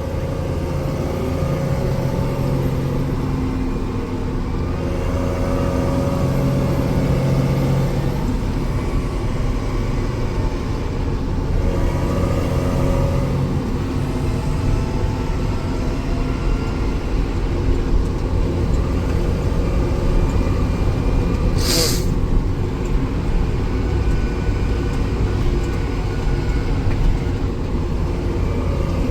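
Tractor engine running steadily under way on the road, heard from the cab. About three quarters of the way in, a single short, sharp noise stands out.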